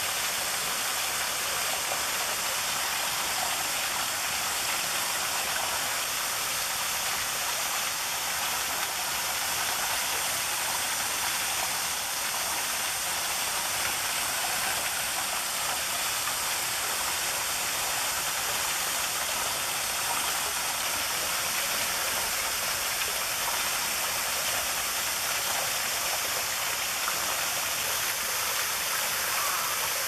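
Small waterfall, thin streams of water falling over rock and splashing onto the stones below: a steady, even hiss of falling water, with little deep rumble.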